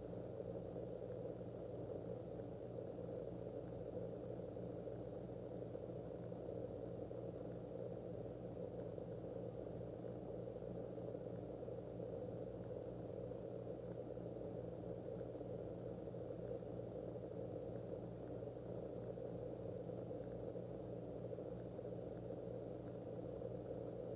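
Steady low hum with a faint hiss, unchanging: the room tone of a quiet room.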